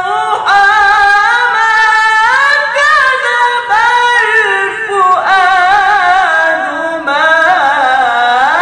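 A man's voice singing unaccompanied in a very high register, with long melismatic runs and wavering ornaments in the style of an Arabic maqam in its high 'jawab' range. It comes in several long held phrases with short breaks for breath.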